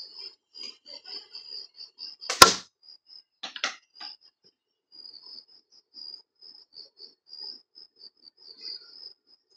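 A 12 mm nut fired from a slingshot strikes the target close by with one loud sharp crack about two and a half seconds in, followed a second later by a few smaller knocks as it bounces and clatters. Insects chirp steadily throughout.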